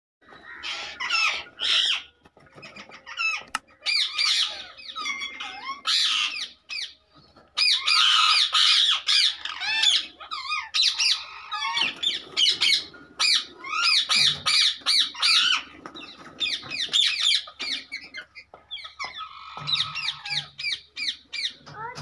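Rose-ringed parakeets squawking: loud bursts of harsh, rapidly repeated calls from several birds at once, with brief pauses between the bursts.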